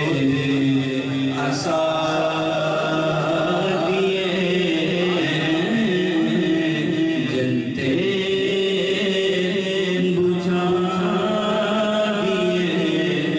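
A man singing an unaccompanied Urdu naat, drawing the words out in long, wavering held notes that slide slowly from pitch to pitch.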